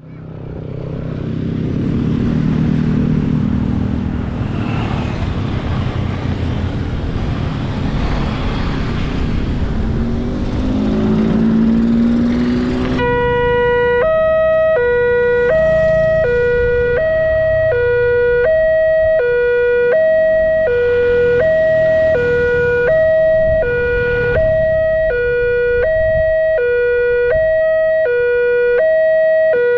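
Road traffic with an engine revving up, then, about halfway through, an Indonesian railway level-crossing alarm starts from the loudspeaker on the signal post. It is an electronic two-tone chime alternating high and low about once a second, warning that a train is approaching as the barrier comes down.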